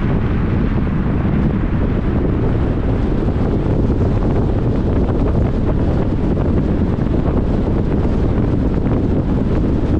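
Steady wind buffeting the microphone over the rumble of a car driving along a city street, with no distinct events.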